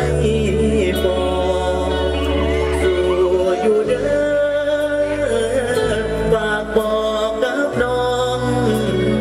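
A singer's voice through a PA microphone over band music, performing a Thai Isan song. Sustained bass notes and regular cymbal ticks run under the wavering vocal line.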